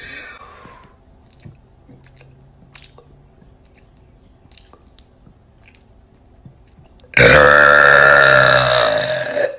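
A person's long, loud burp about seven seconds in, held for over two seconds at a low, fairly steady pitch before fading out. Before it there are only faint small mouth clicks.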